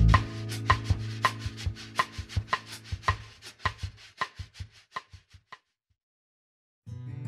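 Background music breaks down to its percussion alone, a rapid clicking at about four beats a second that fades away to silence. Acoustic guitar music starts again near the end.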